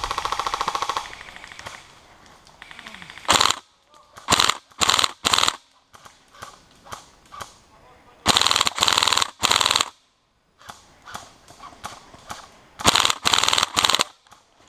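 Airsoft electric rifle firing on full auto: a long rapid rattle that stops about a second in, then loud short bursts in three clusters with pauses between.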